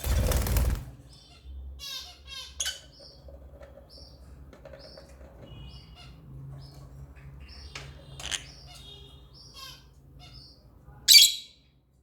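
African lovebirds chirping with many short, high chirps and twitters. A loud noisy burst fills the first second, and one loud harsh squawk comes about 11 seconds in.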